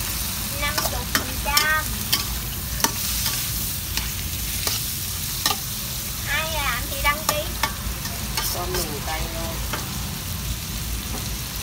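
Shrimp sizzling in a steel wok while a metal spatula stirs them, scraping and clinking against the pan several times.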